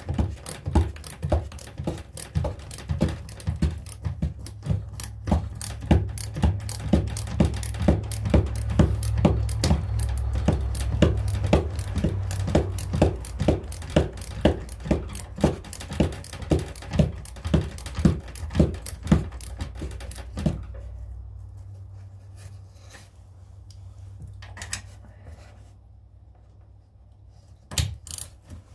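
Ratchet wrench clicking in a steady rhythm, about two strokes a second, as a bolt is driven into an untapped engine mounting hole to cut its threads. A steady low hum underneath stops about two-thirds of the way through, leaving a few scattered clicks.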